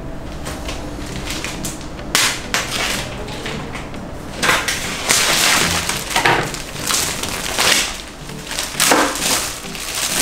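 Clear plastic wrapping crinkling and rustling in repeated bursts as it is pulled off a glass terrarium by hand.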